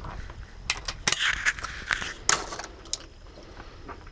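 Shotgun being handled after a pair of shots: several sharp metallic clicks and short rattles, as of the gun being broken open and cartridges taken out and loaded. The loudest come about a second in and again just after two seconds.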